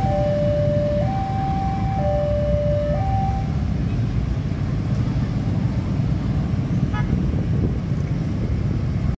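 Level-crossing warning alarm sounding a two-tone signal, switching between a low and a higher note about once a second, then cutting off about three seconds in as the barriers lift and the crossing reopens. Underneath, waiting motorbikes and cars run with a steady traffic rumble.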